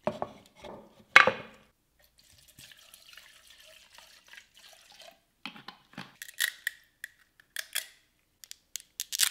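Close-miked handling of small parts: a sharp click about a second in, a soft hiss for a few seconds, then an irregular run of sharp clicks and taps.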